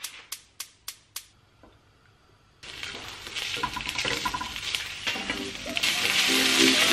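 A few sharp clicks in the first second, then from about two and a half seconds in, bulgogi beef sizzling as it fries in a nonstick frying pan and is stirred with a wooden spoon. The sizzle grows louder toward the end.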